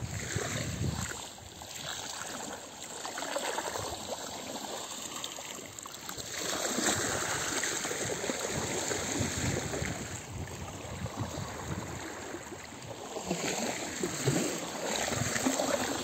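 Small sea waves lapping and washing up onto a sandy shore. The wash swells louder about six seconds in and again near the end.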